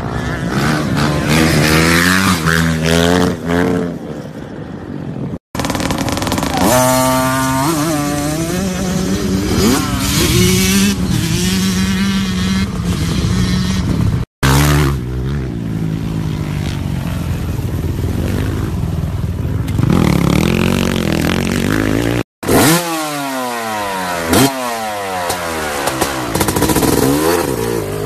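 Dirt bike engines revving and running hard, rising and falling in pitch with the throttle. The sound changes abruptly three times as one short clip gives way to the next.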